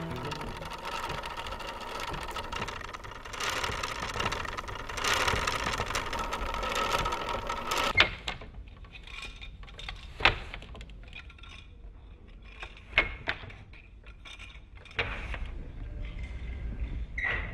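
Wooden hand loom being worked: a dense rattling clatter for the first half, then a few separate sharp wooden knocks a couple of seconds apart.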